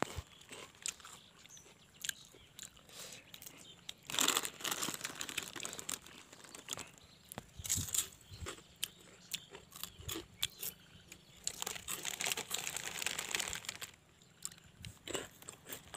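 Crinkling of a foil-lined snack packet and crunchy chewing of snacks, in short bursts with scattered clicks between them.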